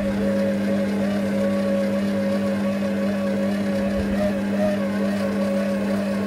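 Food processor motor running at a steady speed, a constant hum, mixing chocolate cake batter.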